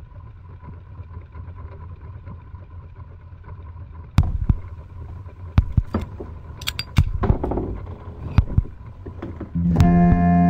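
Steady low drone of a boat's engine, with a faint thin tone over it. From about four seconds in, irregular sharp knocks and clicks come over the drone, and music with sustained tones starts shortly before the end.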